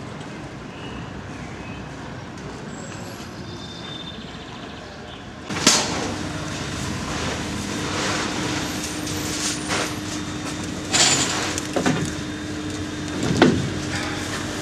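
Steady street background noise. About five seconds in it gives way to a louder indoor ambience with a steady low hum and several sudden loud hisses and clatters.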